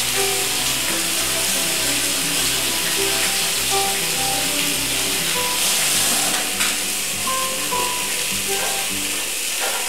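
Background music with short held notes over the steady sizzle of salmon fillets pan-frying in olive oil.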